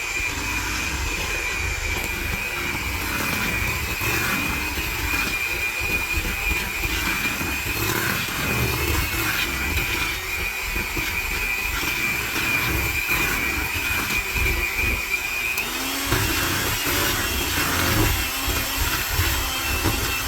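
Electric hand mixer running steadily, its beaters working through cookie dough, with a steady motor whine that shifts higher near the end.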